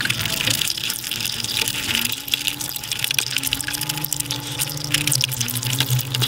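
Mukbang eating sounds played at five times speed: chewing, squelching and hand-on-rice noises blurred into a dense, crackly rushing hiss like running water, over a low steady hum that grows louder near the end.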